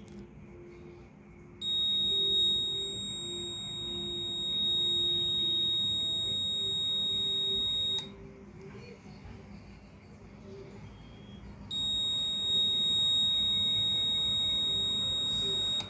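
Piezo buzzer of a 555-timer latching alarm circuit sounding one steady, high-pitched tone, held on by the latch. It cuts off sharply about eight seconds in when the reset push button is pressed, then sounds again about four seconds later and cuts off again right at the end.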